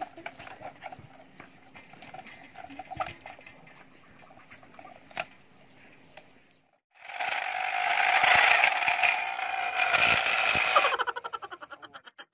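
Quiet clicks and rustles of a plastic bottle being tied to a bicycle frame with plastic strips. Then the wheel is spun: the spokes flick the plastic bottle in a loud, fast buzzing rattle for about four seconds, which breaks into separate flicks coming slower and slower as the wheel runs down.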